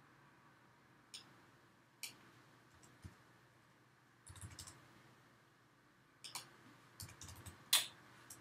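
Faint computer keyboard keystrokes and clicks, in scattered single taps and short runs of a few keys, the loudest tap near the end.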